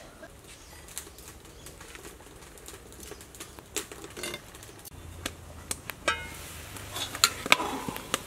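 Scattered light clicks and taps from handling food and utensils, sparse at first and busier and sharper in the second half, over a faint low hum.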